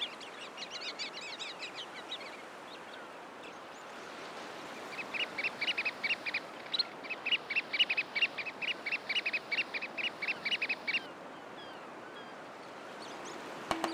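Shorebirds calling over a steady hiss of surf: a scatter of high chattering calls at first, then from about five to eleven seconds a fast run of sharp, evenly repeated calls.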